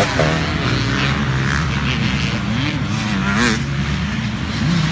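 Motocross bikes racing around a dirt track, their engines revving up and down as the riders shift and throttle through the corners. One engine's revs rise sharply about three and a half seconds in.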